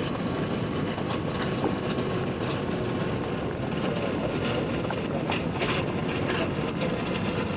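Motorcycle engine running steadily at low speed, mixed with a rushing noise on the microphone.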